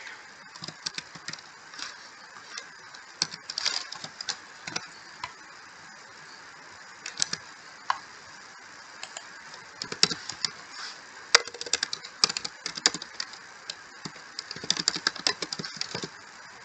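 Computer keyboard being typed on in several short, irregular bursts of key clicks, with a few single clicks in between.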